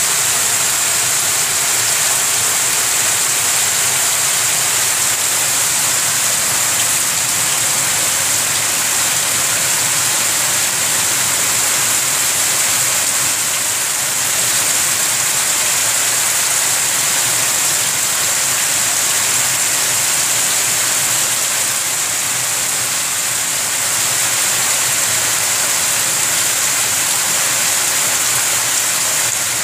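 Heavy rain pouring steadily onto waterlogged ground and trees: a dense, even hiss that keeps the same strength throughout.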